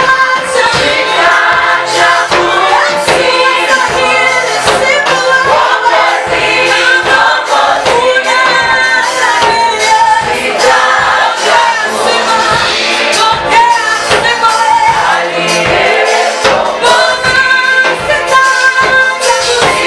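A gospel choir singing a praise and worship song in harmony over a steady percussive beat.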